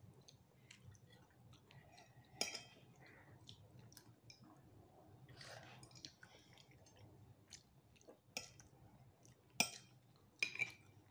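A metal spoon clinking against a bowl a few times, softly, as a child eats mung bean porridge, with faint chewing and mouth sounds in between.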